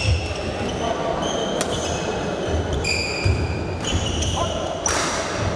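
Badminton shoes squeaking in short high squeals on a wooden court floor, with two sharp racket hits on a shuttlecock, one about one and a half seconds in and one near the end, over a steady low hall rumble.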